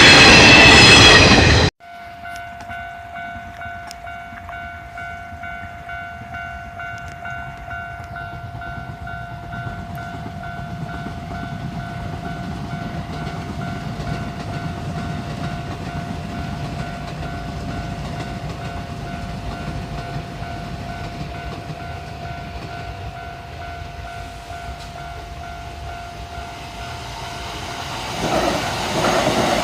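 A second or two of music cuts off, then a Japanese level crossing's electronic warning bell rings steadily, a held ringing tone over a low rumble. Near the end a train arrives at the crossing and its rumble grows louder.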